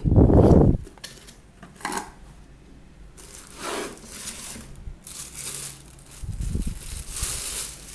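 Cardboard box torn open with a loud rip in the first second, then a clear plastic bag crinkling in bursts as the heater wrapped in it is lifted out and handled.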